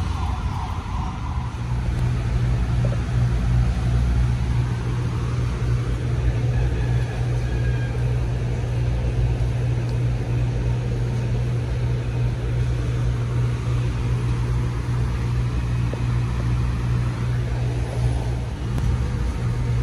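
A vehicle engine idling: a steady, even low hum that holds unchanged throughout.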